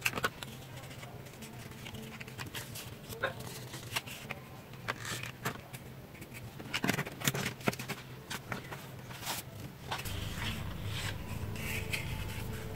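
Faint scattered rustles and light taps of coloured paper being handled and shaped by hand, with a low steady hum coming in about ten seconds in.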